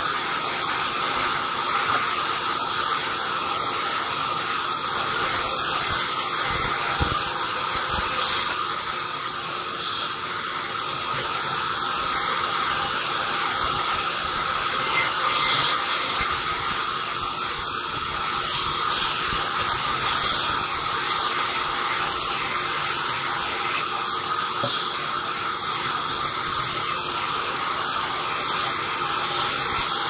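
Sawmill band saw running and ripping through a small log lengthwise: a steady whining hiss of blade and motor that barely changes.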